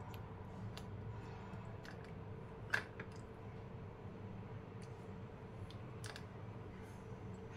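Scattered soft clicks and ticks of a small knife working the skin off an ice apple (palmyra fruit), with one sharper click about three seconds in, over a steady low hum.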